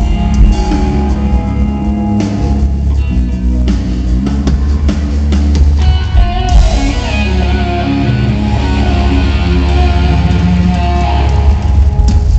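Rock band jamming live at a sound check: electric guitar over a heavy bass guitar and drum kit, with a brighter, busier top end coming in about halfway through.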